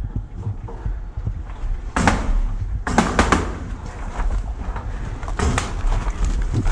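Paintball markers firing: several sharp cracks, a cluster of them about three seconds in and more near the end, over a steady low rumble of movement.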